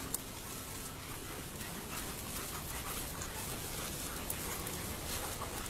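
German shepherds panting and moving about close by, with faint rustling and ticks.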